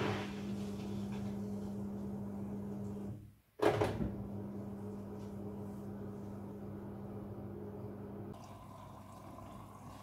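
Midea front-loading washing machine's drain pump humming steadily as it pumps out the rinse water. It cuts off about three seconds in and starts again half a second later. Near the end the hum gives way to a quieter hiss of water running in as the machine refills.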